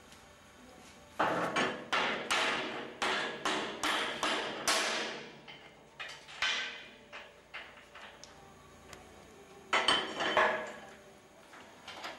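Sharp, ringing metal-on-metal strikes on the steel jig and its bolts as a locomotive boiler flue is bolted in for swaging. About a dozen come in quick succession, roughly three a second, then a few scattered ones, with another short cluster near the end.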